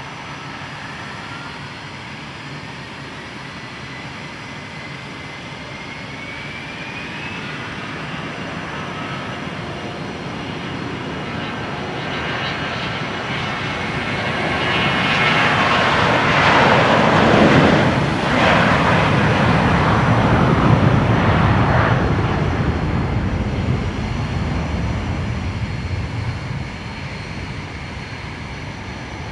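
Gulfstream V's twin Rolls-Royce BR710 turbofans at takeoff power. A whine rises in pitch over the first several seconds, then the jet noise builds to its loudest as the aircraft rolls past, about halfway through, and fades as it climbs away.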